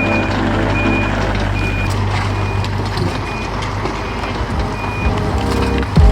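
Reversing alarm on a piece of heavy equipment beeping steadily, about once a second, over an engine running.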